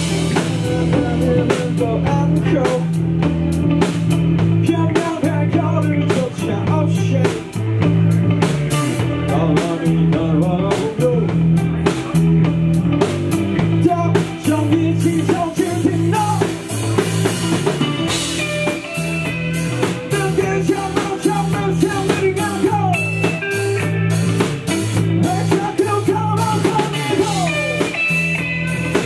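Live rock band playing: electric guitar and bass over a steady drum-kit beat, with sliding guitar lines.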